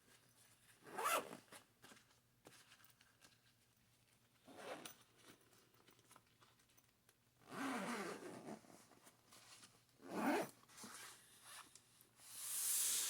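Zipper on a padded computer carrying case being pulled shut in several separate strokes a few seconds apart, with the longest stroke near the end.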